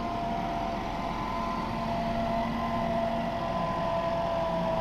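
Fendt 516 tractor with a mounted fertiliser spreader working across the field, running steadily with a whine held on a few even pitches that sag slightly over the seconds.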